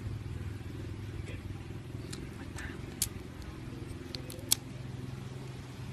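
Small clicks and taps from handling a bare mobile phone circuit board and its keypad dome sheet, with two sharper clicks about three and four and a half seconds in, over a steady low hum.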